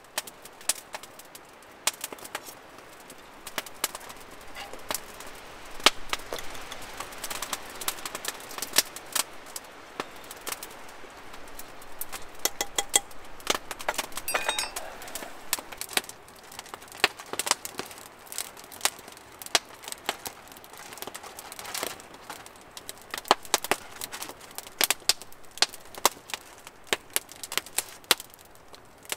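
Open wood campfire crackling, with frequent sharp, irregular pops, and a short rattling patch about halfway through.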